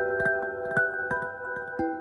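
Smartphone alarm ringtone playing a gentle melody of struck, bell-like mallet notes, about two a second, each ringing on under the next.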